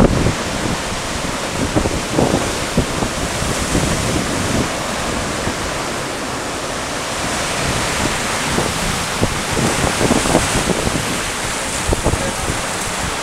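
Surf breaking and churning against rocks, a dense steady rush of water, with gusts of wind buffeting the microphone.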